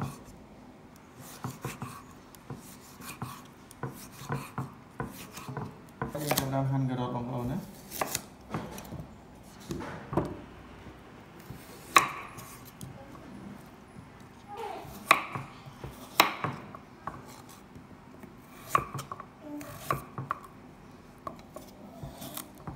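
Kitchen knife cutting preserved salt radish and then firm carrot on a round wooden chopping block: irregular, separate knocks of the blade striking the board, the loudest in the middle part.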